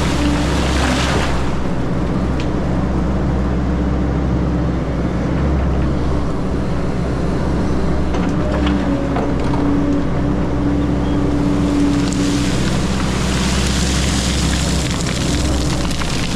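Diesel engine of an XCMG 180 crawler excavator running steadily while working, with a wider hissing noise swelling near the start and again in the last third.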